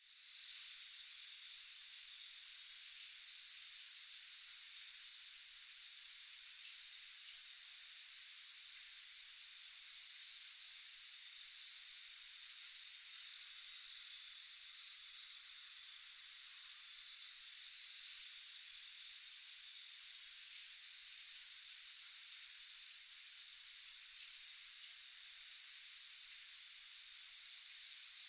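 Crickets chirping in a high, unbroken trill that holds steady in pitch and level, with nothing low beneath it.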